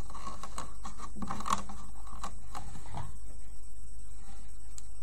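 Light plastic clicks and taps as rubber loom bands are stretched onto the pins of a plastic band loom, a cluster in the first three seconds and then only a couple more, over a steady low hum.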